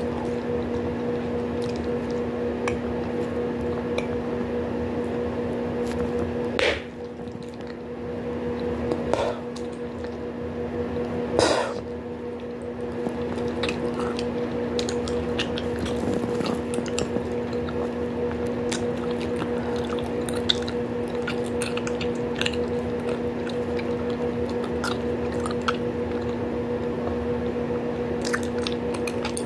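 Bubblegum chewed close to the microphone: wet squishing with many small clicks and snaps, and a few louder snaps in the first half. A steady low hum sits underneath.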